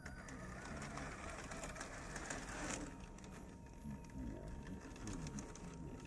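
Traxxas TRX-4 radio-controlled crawler driving up bare granite: its electric motor and gears whine, rising and falling in pitch with the throttle, over crackling and clicking from the tyres on gritty rock.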